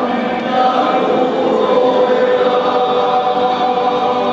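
A large men's choir singing, holding long sustained chords.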